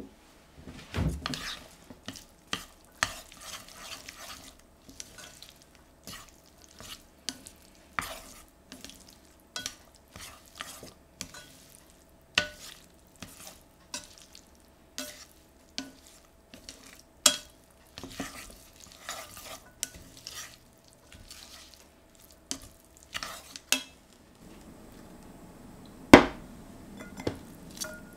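Wooden chopsticks tossing and stirring spaghetti in a stainless steel pan: irregular clicks and knocks of wood against the metal, with one louder knock near the end.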